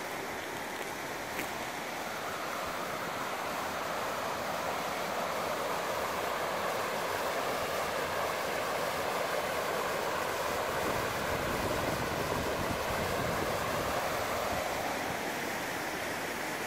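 River rapids rushing over rock ledges: a steady wash of white water that grows a little louder midway.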